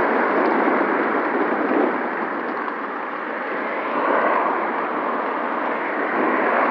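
Steady rushing wind noise on the microphone of a camera carried by a moving rider, mixed with road traffic noise.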